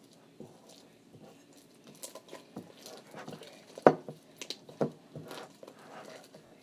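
Sticky homemade glue slime being squished and worked by hand, giving a series of short wet clicks and pops, two of them louder near the middle.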